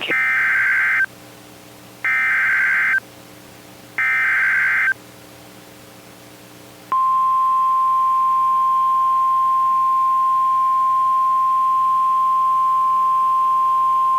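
Emergency Alert System SAME header: three buzzy one-second data bursts, a second apart, then the steady 1050 Hz NOAA Weather Radio warning alarm tone starting about seven seconds in and holding. Together they announce the start of a new alert message.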